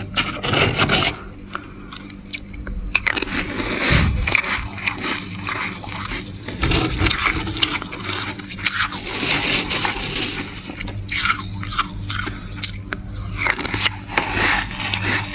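Dry, flaky freezer frost crunching and scraping in irregular crackly bursts, with a brief dull thump about four seconds in.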